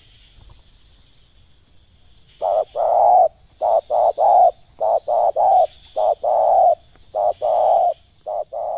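Spotted dove cooing: six short phrases, each of two or three coos with the last note drawn out, beginning about two and a half seconds in.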